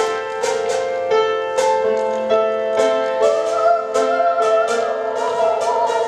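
Upright piano being played live, a steady run of struck notes at about two a second, with a held, wavering higher tone over them from about halfway through.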